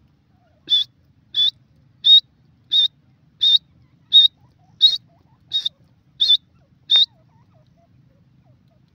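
Grey francolin (teetar) calling: a run of ten short, high, whistled notes at an even pace, about three notes every two seconds, stopping after the tenth.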